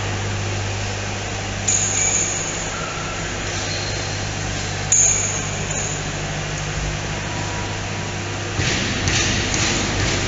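Metalworking factory floor: a steady low machine hum under a noisy bed, with two sharp metallic clinks that ring briefly, the second louder, and a stretch of hissing noise near the end.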